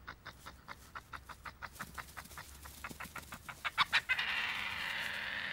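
Badgers chittering: a rapid run of short calls, about seven a second, growing louder, then a longer harsh, noisy call for about a second and a half near the end.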